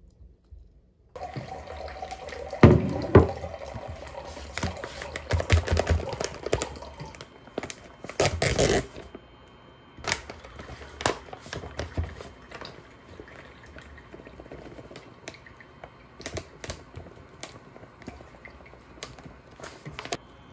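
A large plastic bag of soybean powder handled and rustled, and the powder poured into a glass measuring jug. It starts about a second in and is loudest in the first half, with lighter taps and rustles later.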